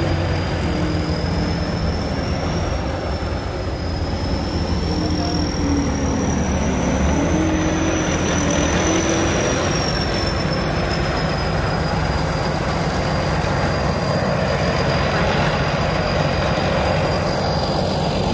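Rice combine harvester running steadily, a high whine drifting slightly in pitch over its engine noise, as its unloading auger pipes threshed rice into a grain truck.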